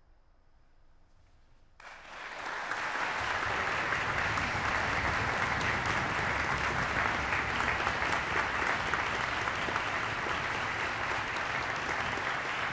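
A hush for about two seconds after the last note, then a concert-hall audience breaks into applause all at once and keeps clapping steadily.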